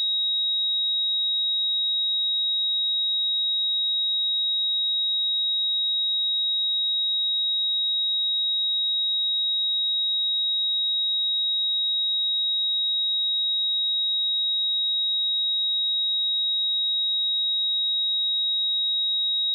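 A steady, high-pitched pure sine-wave test tone at 3798 Hz, a single unchanging pitch with no other sound.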